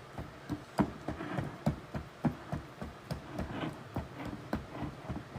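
Cake batter being mixed by hand, the utensil knocking against the mixing bowl in an even rhythm of about three light clacks a second.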